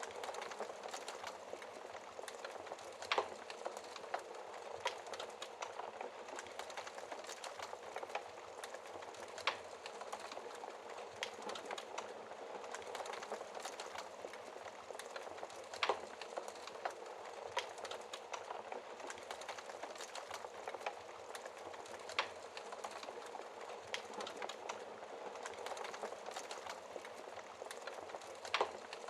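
Wood fire crackling in a fireplace: a steady hiss with frequent small pops and a few louder snaps scattered through it.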